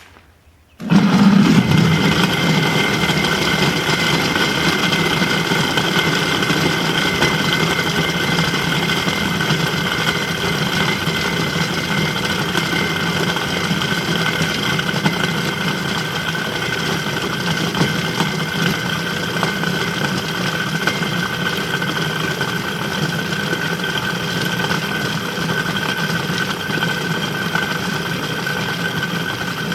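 Old electric motor of about half a kilowatt, switched on about a second in and then running steadily with a hum and a whine. It spins a welded rebar shaft with a twisted mild-steel blade that grinds charcoal and water into a slurry.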